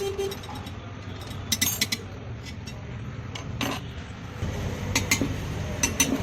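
Light metallic clinks and taps, a few at a time, as metal pieces are handled, over a steady low rumble that grows louder about four seconds in.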